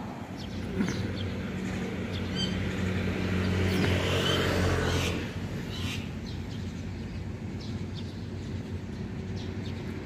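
Mynas giving a few short, scattered chirps and whistles over a steady low engine hum, which drops away about five seconds in.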